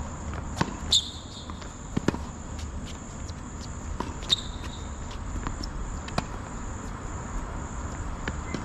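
Tennis rally on a hard court: sharp pops of the ball off racket strings and off the court every second or two. The two loudest, about a second in and about four seconds in, ring briefly. Steady high-pitched insect chirring runs throughout.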